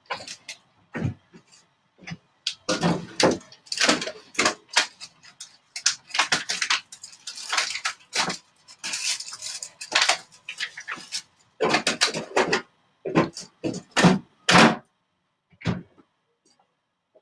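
Household objects being handled and moved about, an irregular run of clinks, knocks and clatters like dishes being shifted.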